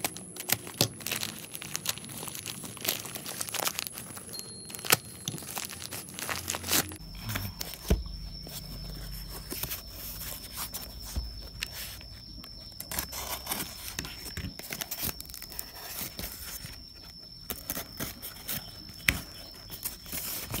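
Plastic mailing bag crinkling and tearing as it is cut and pulled open, then a cardboard parcel being handled and its wrapping torn away: a busy run of short crackles, rustles and clicks.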